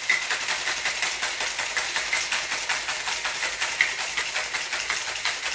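Ice cubes rattling hard inside a metal cocktail shaker tin as a citrus sour is shaken to chill it, in a rapid, even clatter.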